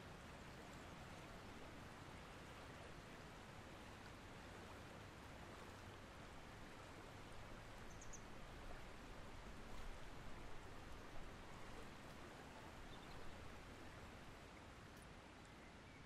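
Faint, steady rush of a flowing river, with a single brief high bird chirp about halfway through.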